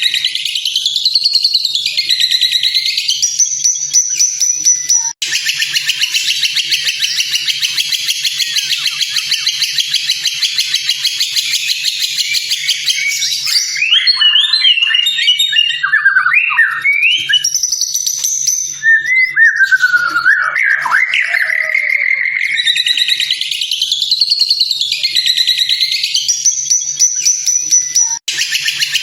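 White-rumped shama (murai batu) song on a recorded training track: rising and falling whistled phrases, then a long buzzy chattering stretch, then a run of quick varied notes, before the opening whistles come round again near the end. The recording cuts out for an instant twice, where the loop restarts.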